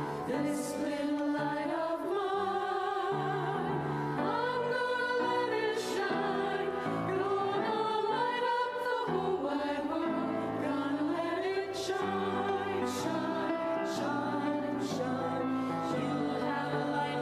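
A church choir singing with instrumental accompaniment, the voices moving over held low notes.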